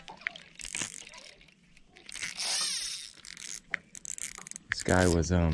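Spinning reel's drag clicking and buzzing as a hooked bass pulls line against it, with scattered clicks early and a longer buzz about two seconds in. The drag is not set right: 'all screwy'.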